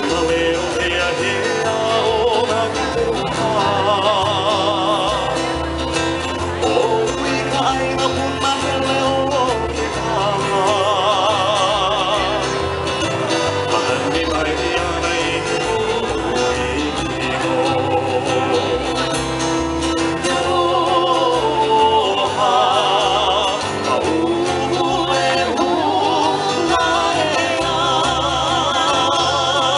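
Live band playing Hawaiian music: singing with vibrato, held on long notes, over guitar and bass.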